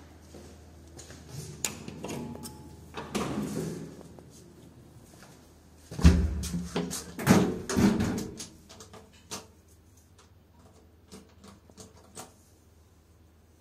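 Heavy metal swing landing door of an old elevator being opened and shut: a deep thud about six seconds in, followed by a run of clanks and knocks of the door and its latch for about two seconds, then a few light clicks.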